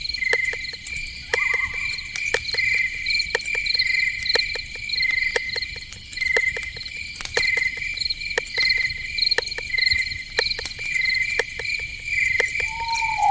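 Night insect chorus: crickets chirping steadily in short pulses, about two a second, with scattered sharp clicks throughout and a brief falling call near the end.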